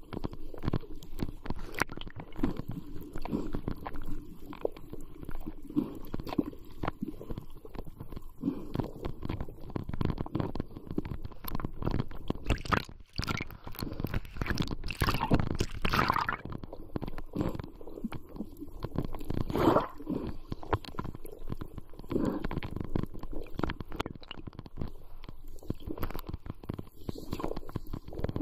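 Underwater sound heard through a submerged camera's housing: muffled rumbling and dense irregular crackling of moving water, with a few louder rushes about halfway through.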